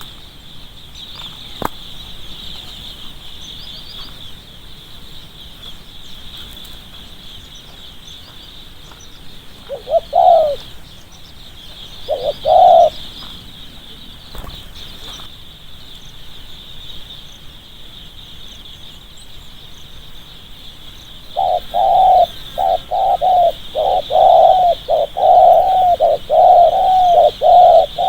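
Spotted dove cooing: two single coos about ten and twelve seconds in, then a quick run of repeated coos in close succession from about two-thirds of the way through, over a steady high buzz.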